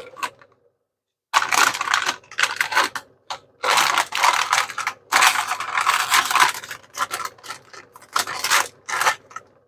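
Plastic instant-noodle packets crinkling and rustling as dry noodle blocks are pulled out of them, in irregular bursts that start about a second in.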